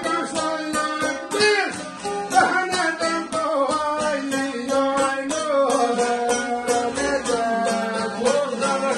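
Albanian folk music: several long-necked lutes strummed and plucked together in a quick, steady rhythm, with a man singing an ornamented line over them.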